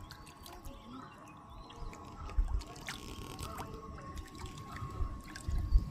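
Birds chirping with many short calls over the murmur of river water, with a steady thin tone underneath. Low bumps come a couple of seconds in and again near the end.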